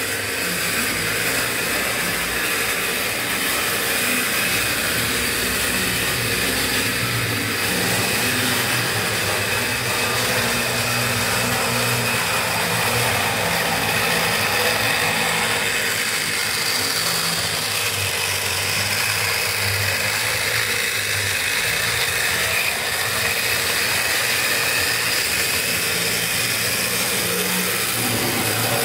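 Model railway train running: the small electric motor and gears whirring steadily, with the wheels running on the rails.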